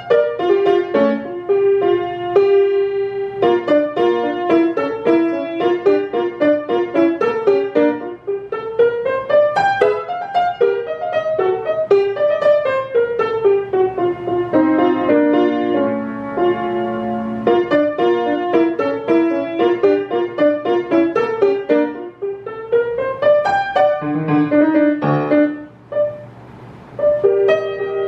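Grand piano played solo by a young child: quick runs of notes that sweep downward and then climb back up, with a brief lull near the end before the playing picks up again.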